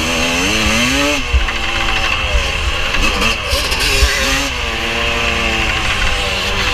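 Vintage Kawasaki motocross bike's engine heard onboard, its pitch rising and falling several times as it accelerates through the gears on a dirt track. Wind rushes over the microphone, and there are a few dull knocks.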